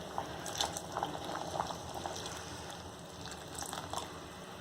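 Pot of sambar boiling on the stove, with soft, irregular bubbling pops.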